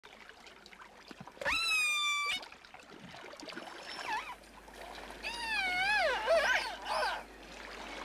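Killer whale calls heard underwater: a steady, high call about a second and a half in, a few short squeaks around four seconds, then a longer wavering call and two short swooping ones. These are the varied squeaks and squawks orcas make while rubbing on a pebble beach.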